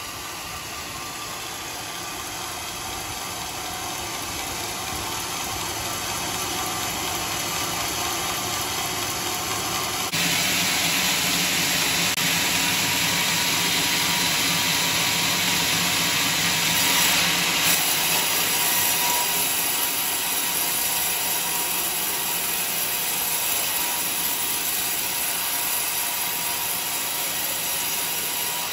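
Bandsaw sawmill running, its steel band blade ripping lengthwise through a log in a steady, continuous cut. About ten seconds in the sound changes abruptly and the cutting hiss becomes louder and brighter.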